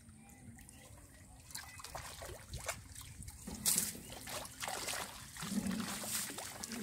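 Water trickling and dripping through the mesh of a bamboo-framed lift net as it is hauled up out of the water. It grows busier and louder after about a second and a half, with a few louder splashes.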